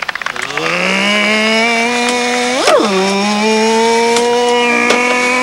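A small engine revving up, rising in pitch and then holding a steady note, with one quick blip up and back down in pitch about two and a half seconds in.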